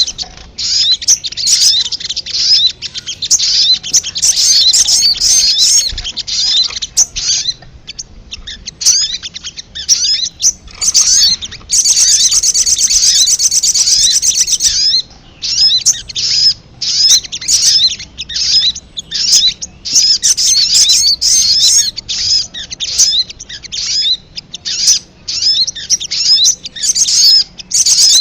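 Rapid, high-pitched chirping calls of the sogon (sogok ontong), the little spiderhunter, coming in dense runs broken by short pauses: a lure call used to draw wild birds in.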